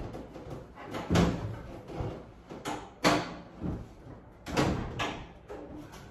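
A series of knocks and clunks as an over-the-range microwave is pushed and jostled against its wall mounting bracket, not yet seating in the slots. The loudest come about one, three and four and a half seconds in.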